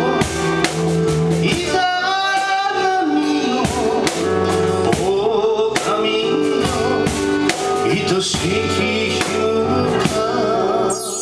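Music: a slow song with sustained instrumental chords, a steady percussion beat and a wavering melody line.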